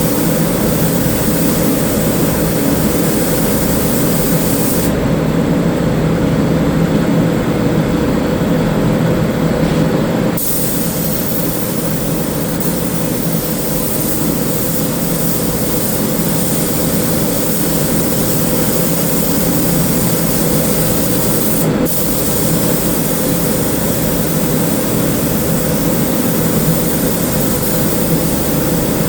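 Spray gun hissing as it lays on sealer primer, over a steady machine hum. The spray cuts out for about five seconds near the start, then again for a moment about twenty-two seconds in.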